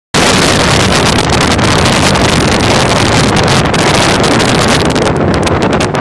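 Loud, steady wind rush buffeting the microphone of a motor scooter ridden at highway speed, mixed with the drone of its engine.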